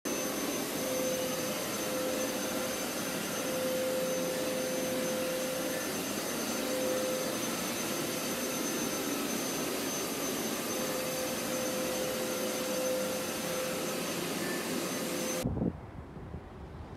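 Upright carpet-cleaning machine running steadily, its motor giving an even rush with a steady hum, cut off suddenly near the end. Faint wind on the microphone follows.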